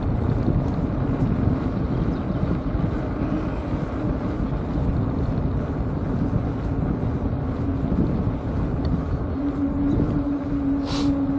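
Wind rushing over the microphone of a camera mounted on a moving bike, with a steady low hum that grows stronger near the end. A brief hiss comes just before the end.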